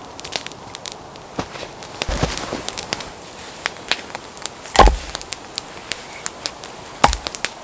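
Campfire crackling, with many sharp pops and clicks, and a few heavier wooden knocks about two, five and seven seconds in; the one near five seconds is the loudest.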